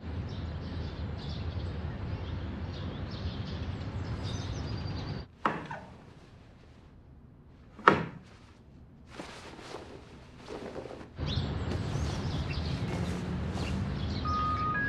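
Steady ambient noise that drops away about five seconds in. In the quieter stretch come two sharp knocks about two and a half seconds apart, the second louder. The steady noise returns about eleven seconds in.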